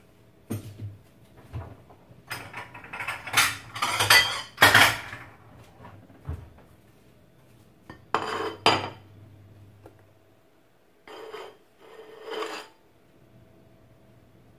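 Dishes and cutlery clattering as they are handled and set down on a kitchen counter, in several separate bursts: a loud cluster of clinks and knocks, then a couple more near the middle and two shorter ones near the end.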